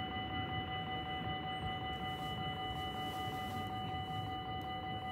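Railway level crossing warning bell ringing steadily while the crossing's lights flash and the barriers are down, signalling that the crossing is closed to road traffic.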